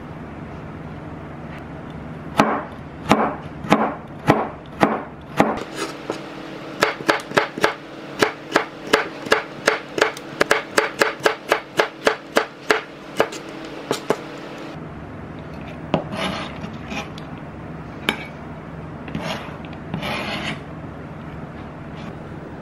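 Kitchen knife chopping on a cutting board: separate strokes about every half second, then quicker steady chopping that stops about two-thirds of the way through. A few short scraping rubs follow.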